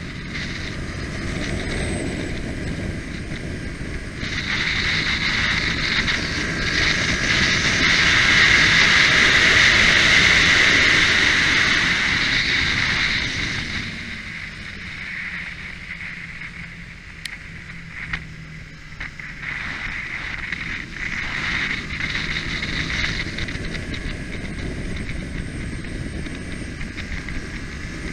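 Onboard sound of a Kawasaki Ninja's parallel-twin engine at track speed, mixed with heavy wind rush on the microphone. The wind noise builds to its loudest in the middle, then drops as the bike slows for a corner, letting the engine's changing note come through.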